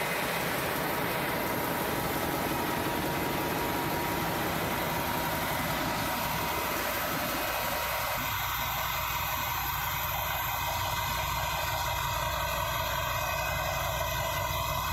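MAN marine diesel generator engine running at steady speed, a loud even engine-room drone with a steady whine. The mid-range clatter eases from about halfway through.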